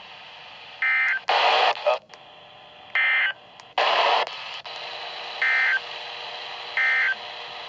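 Emergency Alert System (SAME) digital data bursts over a radio: four short chirps of two-tone modem warble, about a third of a second each, as one warning message is closed off. Two louder bursts of radio static hiss fall between the first chirps.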